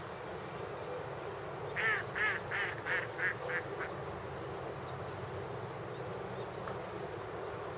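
A bird gives a quick series of about six harsh calls, roughly three a second, fading toward the end, over a steady low background noise.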